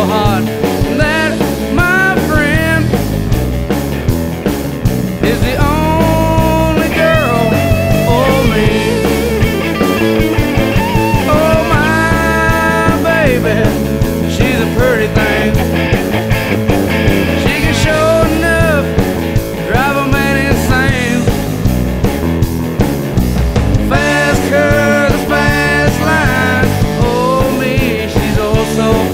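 Rock song with male singing over electric guitars and a drum kit.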